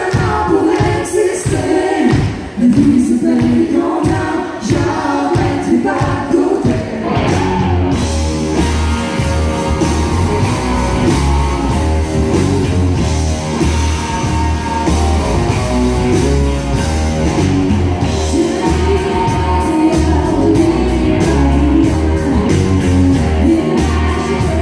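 Live country-rock band: a woman singing over acoustic and electric guitars. About eight seconds in, bass and drums come in and the full band plays on.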